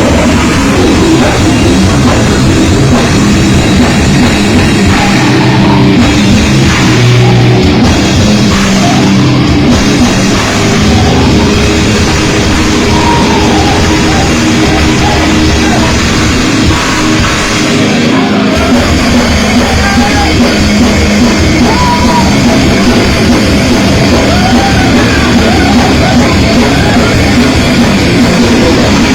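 Live grindcore band playing: loud, distorted heavy music with a pounding drum kit in a dense, unbroken wall of sound.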